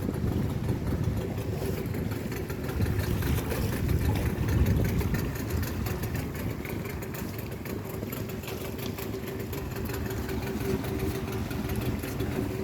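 A boat engine idling steadily, a constant low rumble with a steady hum.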